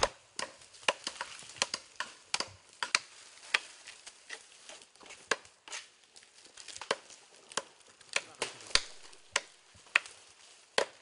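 An irregular series of sharp knocks, roughly one or two a second, over a low background.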